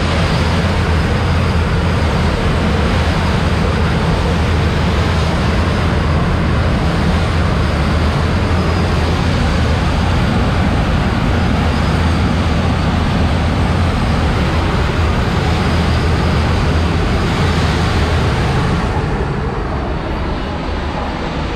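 A moving passenger train heard from its open coach door: a loud, steady rush of wind and wheel-on-rail noise with a low rumble, while it runs alongside a freight train of car-carrier wagons on the next track. The hiss eases a little near the end, once the freight train is left behind.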